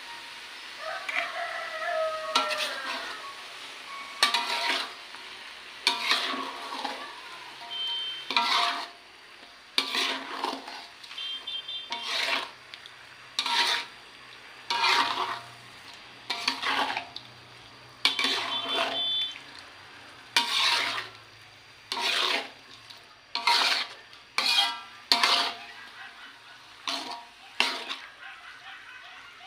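A spatula scraping and turning squid around a wok, a stroke every one to two seconds, over a light sizzle of frying.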